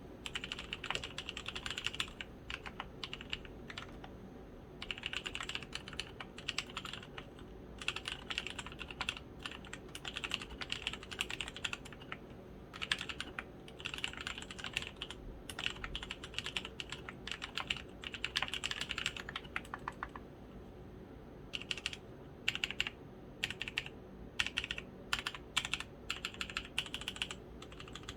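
Typing on a custom 60% mechanical keyboard with lubed Kailh Polia switches and pudding keycaps, built on a copper plate in a foam-damped acrylic case. Runs of fast keystrokes are broken by short pauses, giving way to sparser, separate key presses in the last several seconds.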